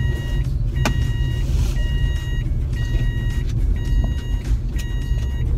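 A car's dashboard warning chime beeping in a steady repeating pattern, about one beep a second, over the low rumble of the car driving, heard from inside the cabin. The beeping stops near the end, and a sharp knock comes about a second in.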